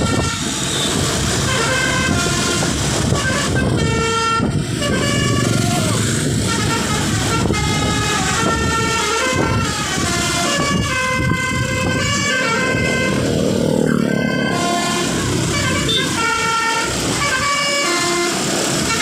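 Telolet basuri bus horn, a multi-trumpet musical horn, playing a tune of short toots that step up and down in pitch, over a steady low rumble.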